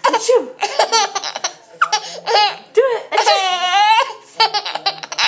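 A baby laughing hard in a run of short high-pitched bursts, breaking into one long squeal of laughter a little past the middle.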